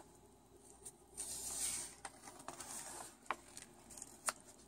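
Faint rustle of a paper book page being turned and the book handled, followed by a few light sharp taps.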